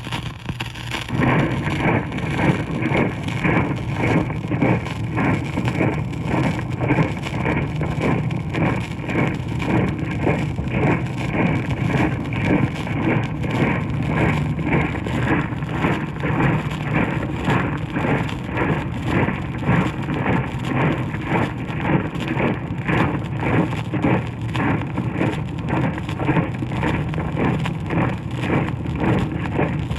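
A troop of feet marching in step, a steady rhythmic tramp starting about a second in, played from a 78 rpm sound-effects record with the disc's surface hiss beneath it.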